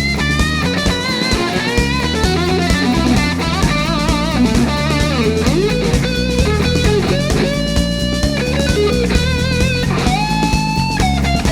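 Rock music with guitar and a drum kit, the lead line holding long, wavering notes that bend in pitch.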